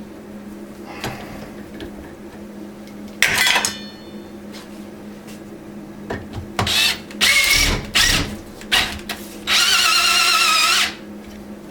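Copper tube being flared with a flaring kit: short screeching squeals of metal on metal as the tool's cone is forced into the tube end, the longest near the end lasting over a second with a wavering pitch. A steady low hum runs underneath.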